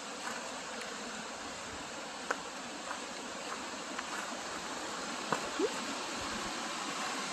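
Small waterfall and creek rushing steadily below a gorge overlook, growing a little louder toward the end, with a few light clicks.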